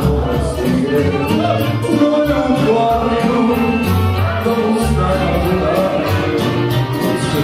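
Live band music: a male singer singing into a microphone, accompanied by accordion and saxophone over a strong low bass.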